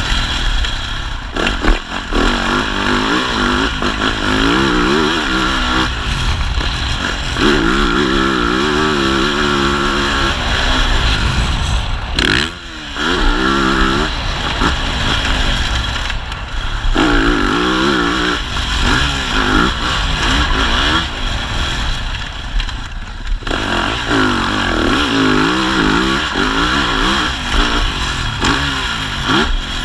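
Yamaha 450 four-stroke motocross bike engine revving up and down over and over as it is ridden hard, with a brief throttle-off about halfway through. Heard from a helmet camera, with wind rush underneath.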